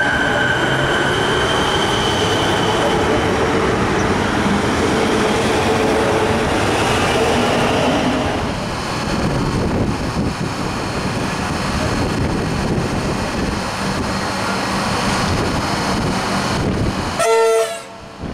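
A Siemens electric suburban train runs along the platform with a steady whine over its running noise. About halfway through, a Comeng electric train stands at the platform with a steady hum. Near the end a short train horn blast sounds for about half a second.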